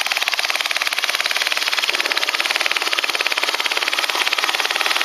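34cc four-stroke grass-trimmer engine converted for a model aircraft, driving a propeller on a test stand and running slowly at idle, firing in an even, rapid beat.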